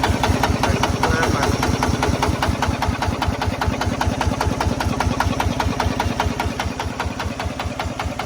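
Kubota RT155 Plus single-cylinder diesel engine on a two-wheel walking tractor, running steadily with a rapid, even chugging beat.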